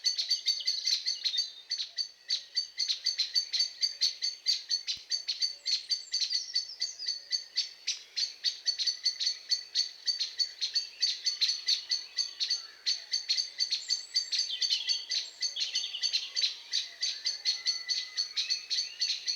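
Birds chirping continuously in fast, high, repeated notes, about ten a second, with a few fainter, lower warbling phrases partway through.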